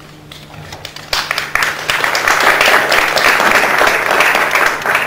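Audience applause: scattered claps that swell into full applause about a second in, then begin to fade near the end.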